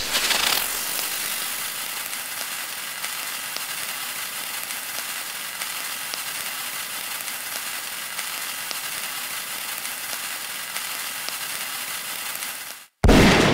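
Tablet app sound effect of a lit fuse burning along the rope letter: a steady crackling sizzle with small ticks. It cuts off just before the end, and a loud hit follows.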